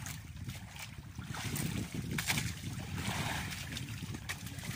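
Wind buffeting the microphone over water lapping and splashing against the hull of an outrigger boat on choppy sea, with a few short sharp sounds along the way.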